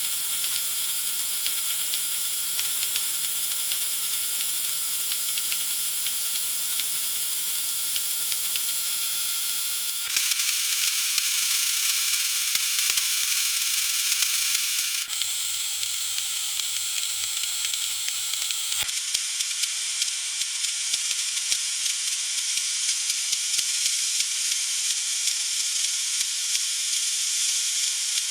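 Food sizzling in a frying pan: a steady hiss with many small crackling pops. The sound changes abruptly three times as different stretches of frying follow one another.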